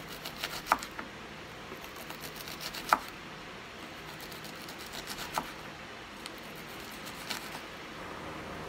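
Kitchen knife slicing a red onion on a wooden cutting board: a few irregular taps of the blade hitting the board, the loudest about a second and three seconds in.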